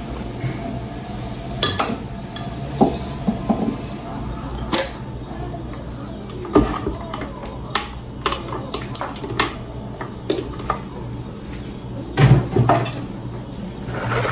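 Kitchen dishes and utensils clinking and knocking irregularly, a spatula tapping and scraping as blended batter is moved from a blender jar into a bowl, over a steady low hum. A heavier thump comes near the end.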